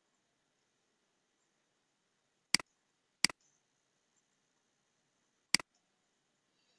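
Three sharp computer mouse clicks, each a press followed at once by a quieter release: two about two and a half seconds in, less than a second apart, and a third about two seconds later. The clicks step a slideshow forward.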